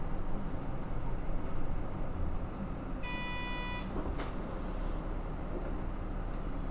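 Nissan Diesel JP city bus diesel engine running steadily under way, heard from inside the cabin. A short electronic beep sounds once about three seconds in.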